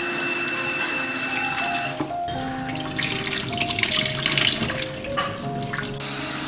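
Tap water running into a steel bowl while raw rice is swished by hand to rinse it. About two seconds in, the cloudy rinse water is poured off into the sink with a louder splashing rush, over background music.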